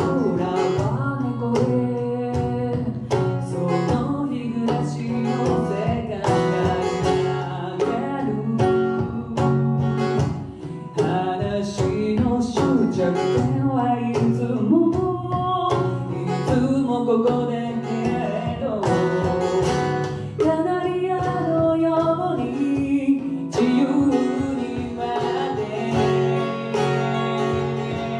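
A woman singing a song, accompanied by a strummed Lowden F-23 acoustic guitar.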